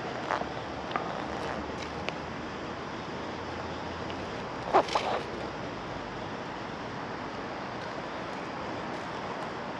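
Steady outdoor rushing noise with a few faint clicks early on and one louder, sharp knock about five seconds in.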